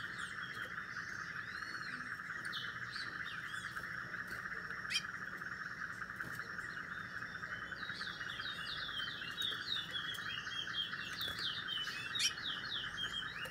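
Small caged brown songbird chirping in quick runs of short, sweeping high notes, busiest near the start and again over the last few seconds, over a steady high drone.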